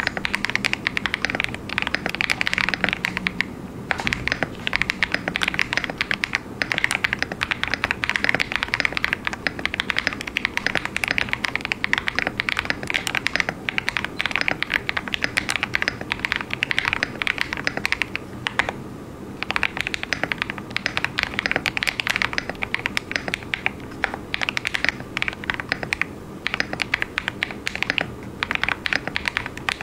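Fast continuous typing on a KBD67 Lite 65% custom mechanical keyboard with a polycarbonate plate, plate and case foam, and lubed KTT Kang White linear switches: a dense stream of keystroke clacks with a few brief pauses.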